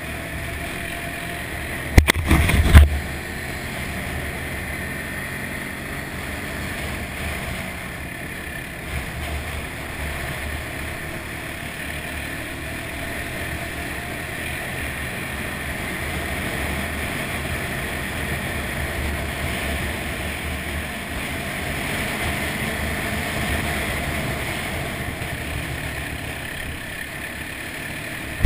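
An ATV's engine running at a steady trail speed under a constant rush of wind and tyre noise, swelling a little past the middle. About two seconds in there is a short burst of loud knocks and rumble, like the machine jolting over a bump.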